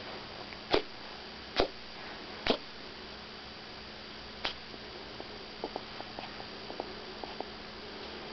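Chihuahua puppy with kennel cough giving short, sharp coughs: three about a second apart, then one more a couple of seconds later, followed by faint light clicks. A steady electrical hum runs underneath.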